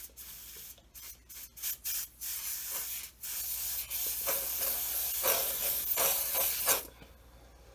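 Preval aerosol spray unit spraying alcohol-based body paint. It hisses in a string of short puffs, then in longer sprays for several seconds, and cuts off about a second before the end.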